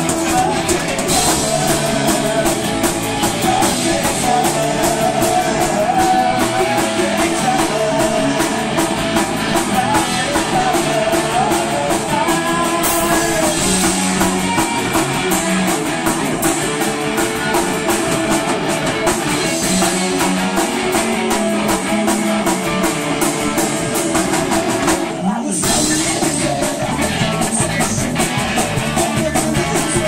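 Live punk rock band playing loud and fast: electric guitar, bass guitar and a drum kit, with a momentary break about 25 seconds in.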